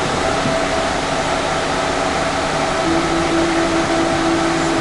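Steady, fan-like whooshing noise from the newly powered-up PA system and its power amplifiers, with a steady mid-low hum tone that sets in about three seconds in and holds.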